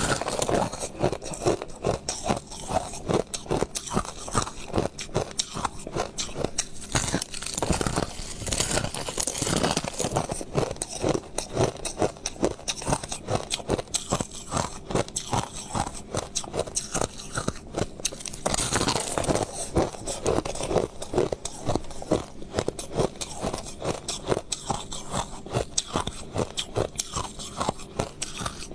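White crushed ice being chewed: a fast, unbroken run of crunches that goes on throughout.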